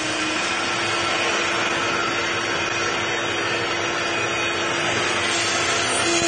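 CNC router spindle cutting into a panel, a steady, unbroken cutting noise with a constant whine held underneath.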